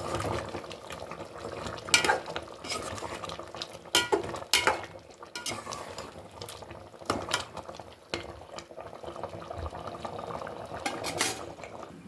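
A metal utensil stirring and scraping in a cooking pan, with several sharp clinks against the pan over a steady frying sizzle.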